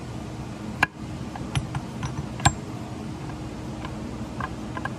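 Sharp metal clicks and clinks of transmission gears, shafts and shift forks being worked into a Honda Pioneer 1000 sub-transmission case. The loudest come about a second in and near the middle, with lighter ticks toward the end, over a steady low hum.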